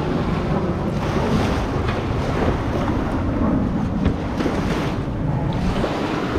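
Wind buffeting the microphone over the wash of small surf on the beach, with a few light knocks as a kayak cart is handled.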